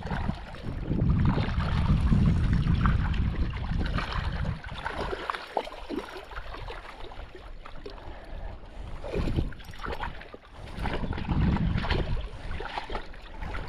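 Wind buffeting the microphone outdoors, a low rumble that rises and falls in gusts, with a few light knocks mixed in.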